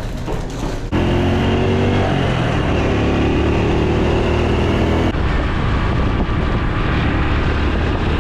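Honda Super Cub's single-cylinder four-stroke engine pulling away and accelerating, its pitch rising, dropping at a gear change and rising again. After that it runs steadily at speed under wind rush on the microphone.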